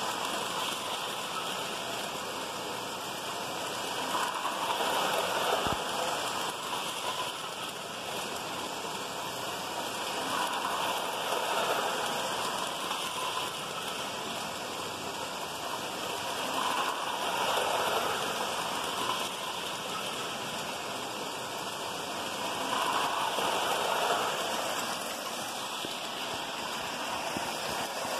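Lionel toy freight trains running on tubular track, a steady whirring rumble of wheels and motors that swells about every six seconds as a train passes close by.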